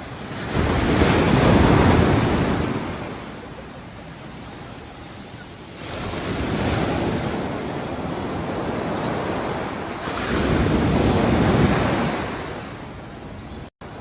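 Ocean waves breaking and washing in on the shore, three surges of rushing surf, the first and loudest about a second in, the others a few seconds apart. A brief cut-out near the end.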